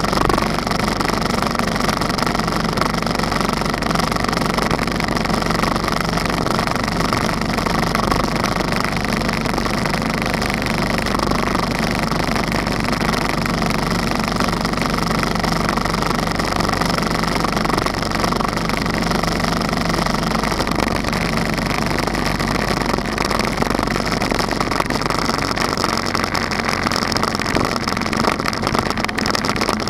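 Motorcycle cruising at a steady speed, engine running evenly under wind and road noise picked up by a camera mounted on the bike.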